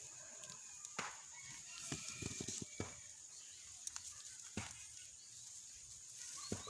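Faint outdoor background: a steady high insect drone, a few short bird calls, and scattered sharp clicks with a quick run of soft knocks a couple of seconds in.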